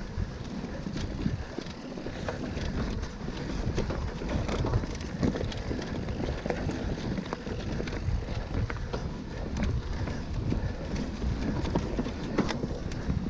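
Mountain bike riding over a dirt singletrack: knobbly tyres rolling on leaf-covered dirt with a steady rumble, and frequent small knocks and rattles from the bike as it rides over bumps and roots.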